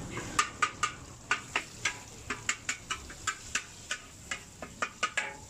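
Metal spatula scraping and clacking against a wok while tossing bean sprouts and noodles, in quick uneven strokes about three or four a second. A light frying sizzle runs beneath.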